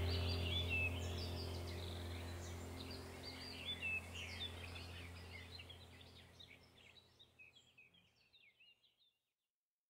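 Background ambience of birds chirping over a steady low hum, the whole fading out gradually until it is gone about nine seconds in.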